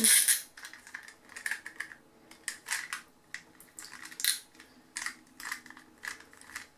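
A Swimways Squirt plastic pull-string swimming turtle toy being handled and its string pulled out: a short loud rustle at the start, then irregular small clicks and rattles from the plastic shell and string mechanism.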